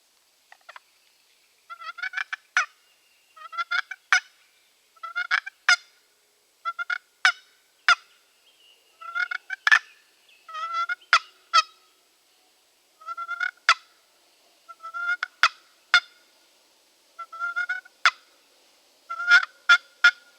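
Hunter's turkey call making soft purrs to draw in a turkey: about a dozen short rolling bursts, one every second or two, each ending in a sharp click.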